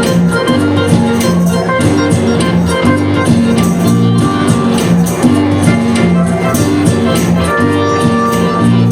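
Live band music: a bass line moving under guitar, with a steady beat of short percussion strokes.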